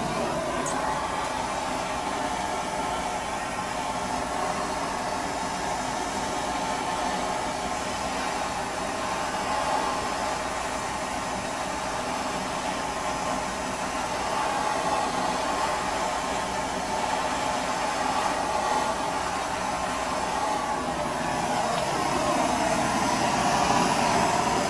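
Handheld blowtorch flame burning with a steady hiss, played over oil paint on canvas; it grows a little louder near the end.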